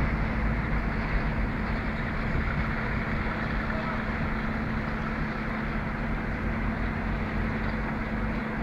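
Mobile crane's diesel engine running steadily with a constant hum, mixed with site noise.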